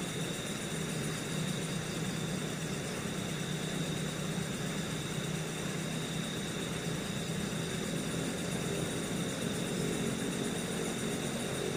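Steady rushing of fast-flowing stream water beneath a bridge, even and unbroken, with a thin high steady tone running over it.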